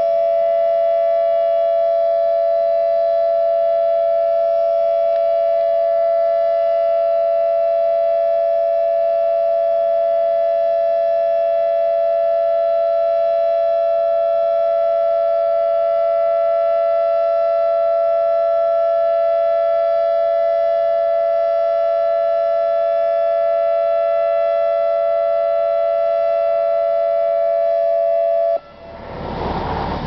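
American Signal AL-8000 Alertronic electronic warning siren sounding one steady, unwavering tone during its scheduled test. The tone cuts off suddenly near the end and a broad rushing noise takes over.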